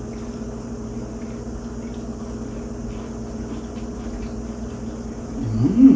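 Steady low hum from a running kitchen appliance. Near the end, a short rising hummed "mmm" from a person tasting food.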